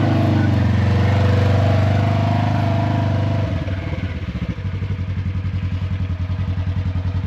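ATV engine running steadily. About three and a half seconds in it drops to an idle with an even pulsing beat.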